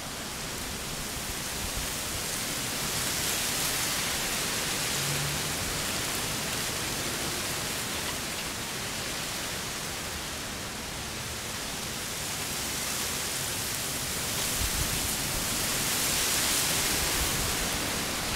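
A steady outdoor hiss that slowly swells and eases, with a brief low rumble about three-quarters of the way through.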